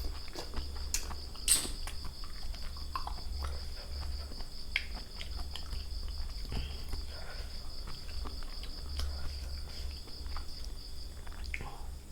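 Crickets trilling steadily in a fast, even pulse, with scattered small clicks and crunches of people eating.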